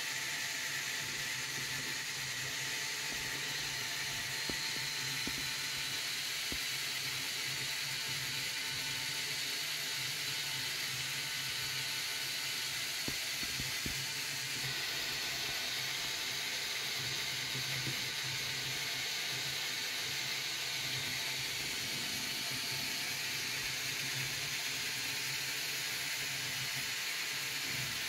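Lego Technic gear train driven by an electric motor, running with a steady whir and hiss and a few faint clicks.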